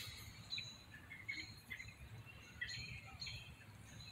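Faint bird chirps: several short, scattered calls over a quiet outdoor background.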